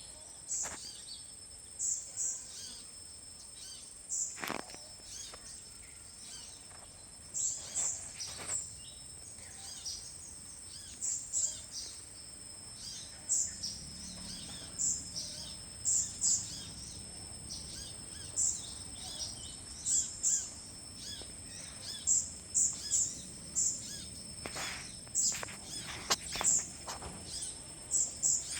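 Small birds giving many short, high chirps, often in quick clusters, over a steady high-pitched insect drone.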